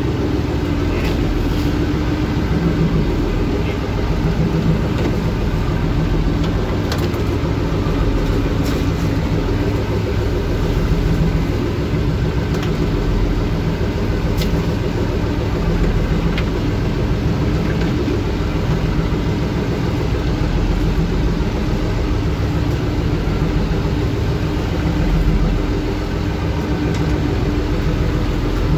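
Small fishing boat's motor running steadily at a constant speed while the boat is underway, with water and wind noise beneath.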